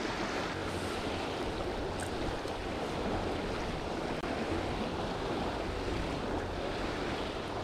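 Small river running slightly high over a shallow riffle: a steady, even rush of moving water.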